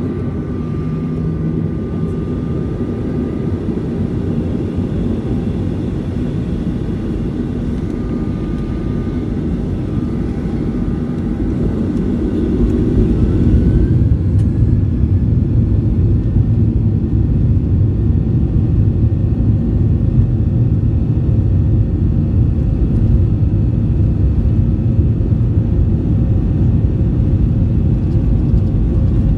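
Jet airliner's turbofan engines heard from inside the cabin beside the wing: a steady hum at first, then about twelve seconds in a rising whine as the engines spool up to takeoff thrust, after which the sound is louder and holds steady as the takeoff roll gets under way.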